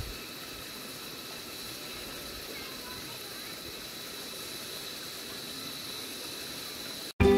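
Shallow, rocky mountain stream running over stones: a steady, even hiss with a faint, steady high tone above it. Music cuts in abruptly at the very end.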